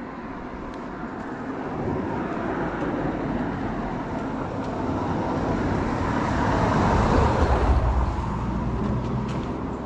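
A car passing on a road, its tyre and engine noise rising to a peak about seven seconds in and then fading away.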